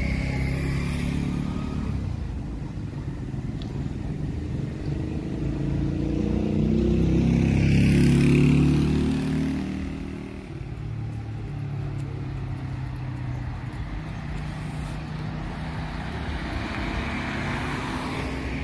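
Street traffic: motor vehicle engines running steadily. One vehicle passes close about halfway through, rising to the loudest point and then fading. A softer pass-by follows near the end.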